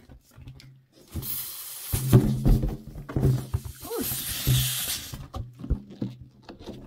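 Air hissing out of an inflated latex balloon's neck as it is worked over the top of a plastic bottle, in two spurts about a second and four seconds in, over a low buzz, with knocks from handling the bottle.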